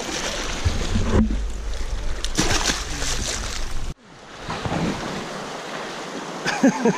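Surf washing over shoreline rocks, with a heavy low rumble of wind on the microphone. About four seconds in the sound cuts off abruptly and comes back as a quieter, steady wash of water.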